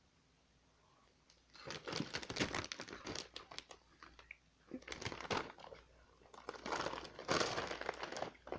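A plastic snack bag crinkling as it is handled, in three bouts of crackling after a short quiet start.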